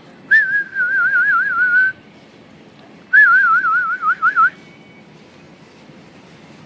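A person whistling a warbling note whose pitch wavers quickly up and down, in two phrases of about a second and a half each, the second starting about three seconds in.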